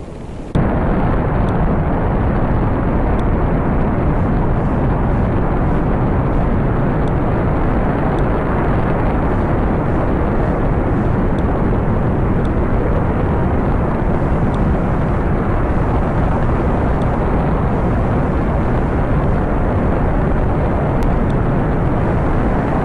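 Rocket launch: the engines' loud, steady roar, a dense low rumble that starts abruptly about half a second in and holds without change.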